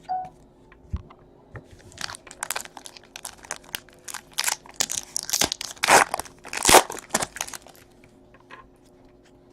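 A trading-card pack wrapper being torn open and crumpled: a run of short crinkling rips, loudest about six and seven seconds in.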